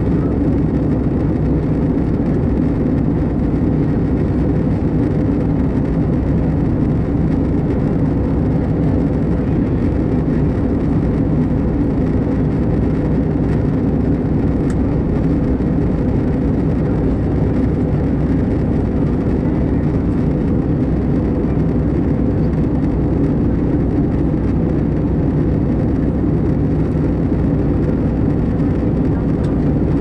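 Steady cabin noise of an Airbus A320-214 in flight, heard from inside at a window seat: an even, deep drone of its CFM56 engines and the airflow over the fuselage, unchanging throughout.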